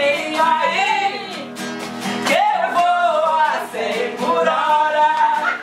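Voices singing a carnival marchinha to a strummed acoustic guitar, with steady rhythmic strumming under the melody.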